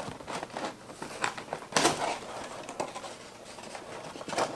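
Short hard plastic clicks and knocks with some rustling as a panel on a Hasbro Proton Pack toy is worked loose by hand; the loudest knock comes about two seconds in, another near the end.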